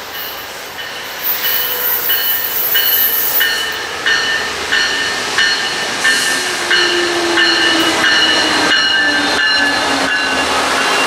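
MARC commuter train of bilevel coaches pulling into the station and running past, a bell ringing about every two-thirds of a second as it approaches. The rumble of the wheels grows louder as the locomotive and coaches pass close by.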